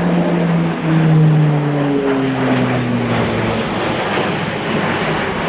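Airbus A400M's four Europrop TP400 turboprops with eight-bladed propellers, a loud propeller drone as the transport banks overhead. The propeller tone falls in pitch between about one and four seconds in.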